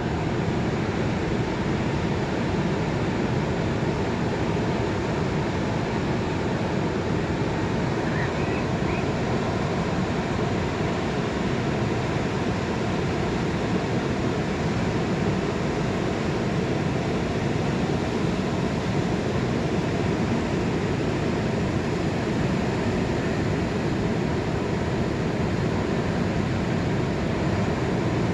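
Pacific Ocean surf: waves breaking offshore and foam washing up the sand, a steady, unbroken rushing noise.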